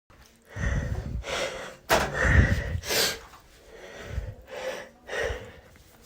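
A person's allergic sneezing fit: a quick run of gasping in-breaths and sneezes, with the sharpest bursts about two and three seconds in.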